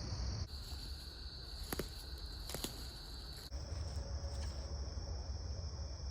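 A steady, high-pitched chorus of crickets trilling in pre-dawn woods, over a low rumble, with two sharp clicks in the middle, a little under a second apart.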